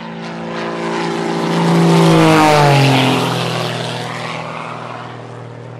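Propeller airplane flying past: its engine drone swells to its loudest about two seconds in, drops in pitch as it passes, then fades.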